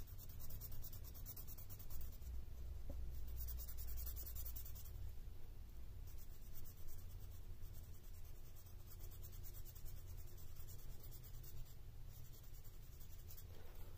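Yellow felt-tip marker scratching back and forth on a paper tracker sheet as a block is coloured in: quick, soft strokes, busiest in the first few seconds, over a low steady hum.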